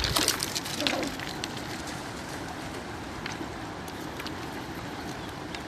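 Water rushing and splashing as a dog swims, with a cluster of crackly splashes in the first second, then a steady rush.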